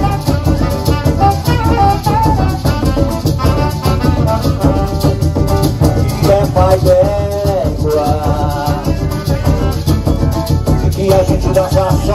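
Live carimbó band playing: hand drums keep a steady beat under a constant shake of maracas, with guitar and a melody line over the top.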